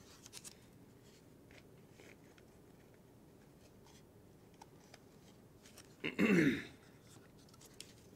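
Faint handling clicks and rustles as a flat puppet-head cutout is turned in the hands. About six seconds in, a short voice sound falling in pitch, like a murmured 'hmm', is the loudest thing.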